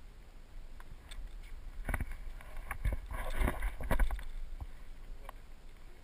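Hikers' footsteps and gear rustling on a rocky trail: scattered scuffs and knocks, with a louder rustling scrape about three to four seconds in, over a low rumble of wind on the microphone.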